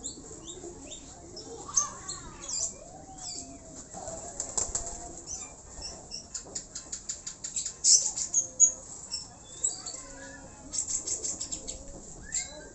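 Pigeons' wings flapping in quick runs of wingbeats, once around the middle and again near the end, with birds chirping throughout.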